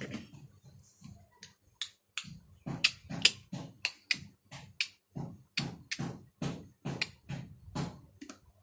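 Repeated sharp plastic taps and knocks, about two or three a second, as a small plastic lid is banged about.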